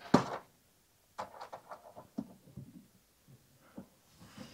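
Hand tools working at a screw hole in the plastic shell of a portable power station: a sharp click as pliers pull a tight plug, then about a second later a scatter of light clicks and taps of tool on plastic.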